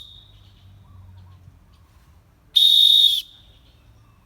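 A referee's whistle blown in one short, shrill, steady blast of well under a second, about two and a half seconds in, sounding the volleyball end-of-game signal.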